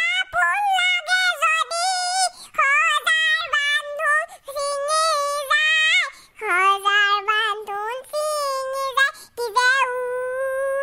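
A high-pitched, sped-up cartoon child's voice singing unaccompanied, a wavering melody in short phrases with brief breaks between them.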